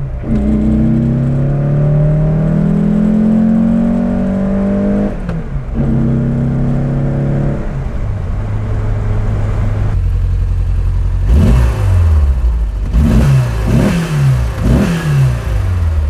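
Porsche 356's air-cooled flat-four pulling hard, its note rising through a gear, with a shift about five seconds in and a second pull after it. From about eleven seconds it gives a run of short rev blips, the pitch rising and dropping quickly several times.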